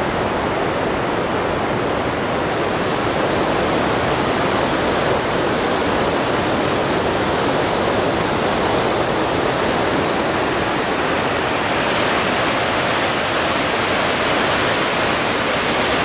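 Steady, loud rush of a river in flood pouring through rapids. The river is far above its normal level and its current is very strong.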